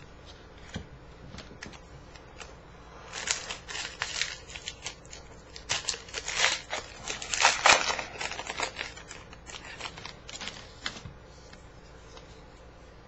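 Foil wrapper of a baseball card pack crinkling and tearing open, in crackly bursts through the middle. It trails off into the softer sound of the cards being handled.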